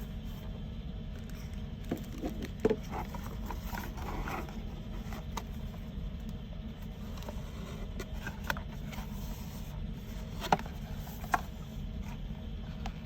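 Hands handling small items and packaging: light rustling and scraping with a few sharp clicks, the loudest near the start and two more toward the end, over a steady low background hum.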